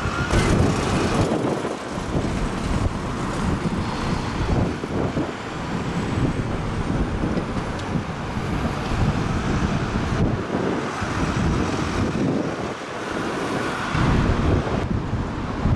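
Street traffic noise with a single-deck bus driving past close by. Wind gusts buffet the microphone now and then.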